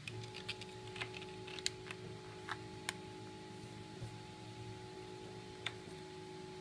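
A scatter of light, irregular clicks and taps from thin 3D-printed PETG plastic panels being folded and handled, bunched in the first three seconds, with one more near the end. Under them runs soft background music of held tones.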